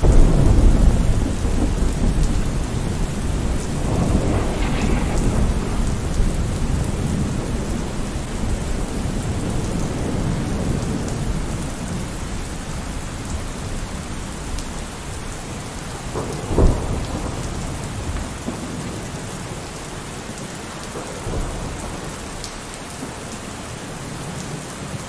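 Steady rain with rolling thunder. There is a heavy rumble at the start and another about four seconds in, then a sharp clap about sixteen seconds in. The storm grows gradually quieter toward the end.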